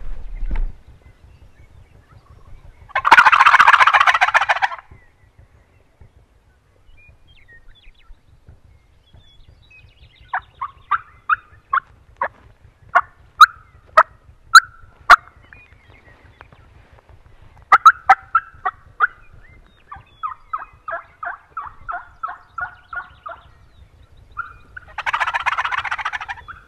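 A loud turkey gobble about three seconds in and another near the end; between them, runs of sharp hen-turkey cutts and yelps on a turkey call, the last run a steady yelping of about five notes a second.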